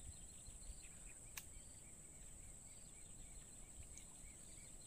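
Faint natural ambience: a steady high insect drone, with short chirps repeating a few times a second, and a single sharp click about a second and a half in.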